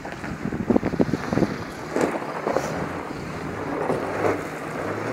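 Wind buffeting the microphone over the engine of a Toyota Land Cruiser 80-series 4.2-litre straight-six diesel working up a steep rocky dirt track. The engine's steady low hum comes through more clearly in the second half.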